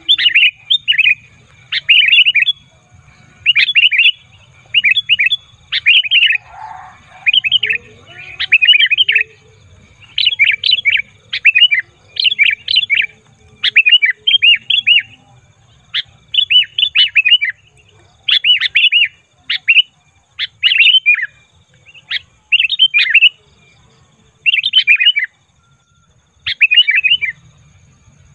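Sooty-headed bulbul calling noisily: short clusters of quick, bright chattering notes, about one burst a second with brief pauses, the agitated 'ribut' calling used as a lure for wild bulbuls.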